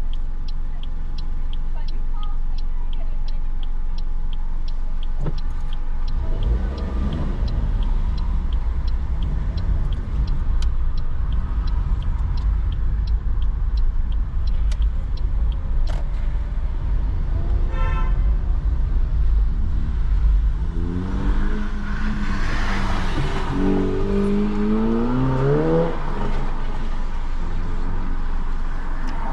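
Inside a car's cabin: the direction indicator ticks steadily, about one and a half ticks a second, for the first six seconds. Then engine and tyre noise grows as the car drives on, with the engine note rising several times near the end.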